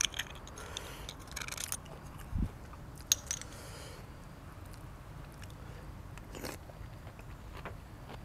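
A person eating close to the microphone: chewing and biting food, with scattered small clicks and a few short noisy bursts, a dull thump about two and a half seconds in and a sharp click just after.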